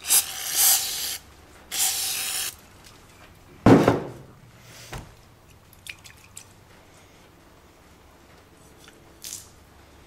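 Aerosol brake cleaner sprayed through its straw nozzle into a metal oil furnace filter canister, two hissing bursts of about a second each. A loud knock follows about four seconds in, then a few light handling clicks.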